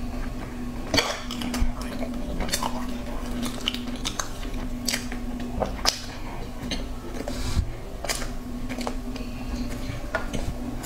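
Close-miked chewing and biting of soft chocolate cake, with irregular wet smacks and clicks of the mouth. A steady low hum runs underneath.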